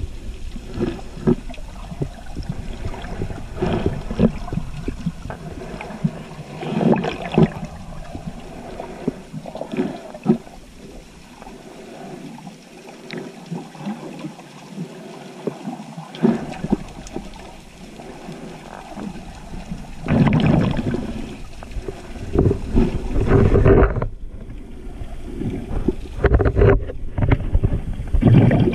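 Underwater sound picked up by a snorkeler's camera: sloshing, bubbling water with irregular louder surges every few seconds.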